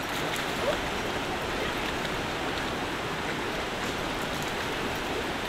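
Shallow, rocky creek running with a steady rushing sound.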